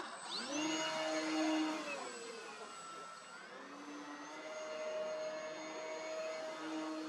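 Flex Innovations Mamba 10 electric RC plane's motor and propeller whining as it throttles up for takeoff, the pitch rising sharply in the first second. The whine dips about two to three seconds in, then holds steady as the plane flies.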